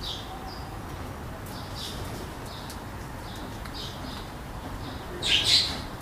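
Parakeets chirping in short, high notes about twice a second, with one louder, harsher call a little after five seconds in, over a steady low background murmur.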